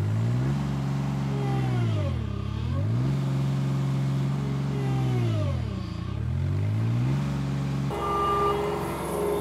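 Bobcat L28 small articulated loader's diesel engine working under load, its pitch dipping and recovering twice as the hydrostatic drive and hydraulics pull it down pushing the bucket into hardpacked clay. About eight seconds in the sound steadies and a steady higher tone joins it.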